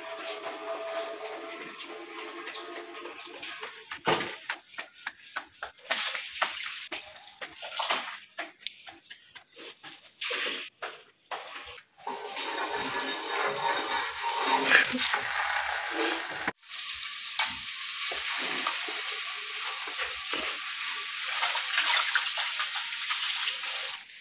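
Tap water running and rice being rinsed in a steel bowl, splashing and sloshing in uneven bursts. About halfway through, a steady sizzle takes over as cooking fat is spread with a spoon over a hot black tawa griddle.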